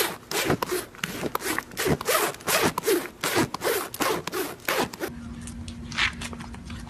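Horse nibbling and rubbing its muzzle against a jacket close to the microphone: loud rasping, rubbing strokes, about three a second. About five seconds in they stop, leaving a quieter low steady hum with faint taps.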